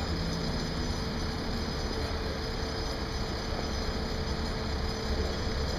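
Steady low engine rumble with a constant mid-pitched hum.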